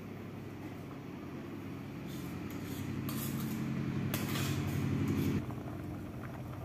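A ladle scraping and knocking a few times inside a metal cooking pot of stew, over a steady low engine-like hum that grows louder and then drops off suddenly about five seconds in.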